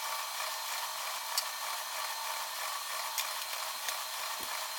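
A machine running: a steady whooshing hiss with a faint whine, and a few light clicks.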